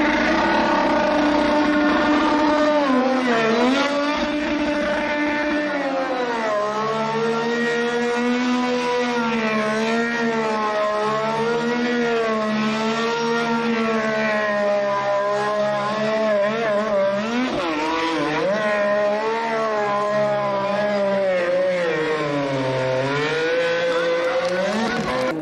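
Honda-powered Dallara IndyCar's 2.2-litre twin-turbo V6 held at high revs, its pitch swinging up and down as the spinning rear tyres drive the car round in smoking donuts.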